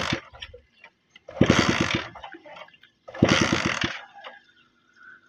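Old motorcycle engine, rigged to turn a big diesel oil engine's flywheel, being cranked in short start attempts: four bursts of rapid chugging with a hiss, about a second and a half apart, each dying away without catching.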